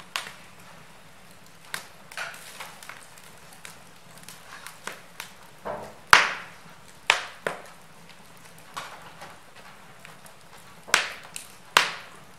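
Split logs burning on a grate in a brick fireplace, crackling with irregular sharp pops over a low steady hiss; the loudest pop comes about halfway through, with a few more strong ones near the end.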